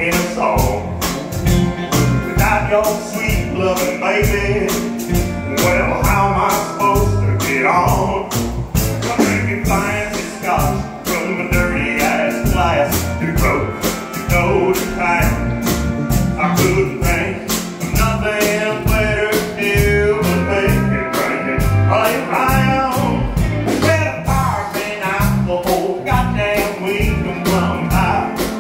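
Live country band playing an instrumental break: drum kit, electric bass, acoustic and electric guitars and pedal steel guitar, with a steady drum beat.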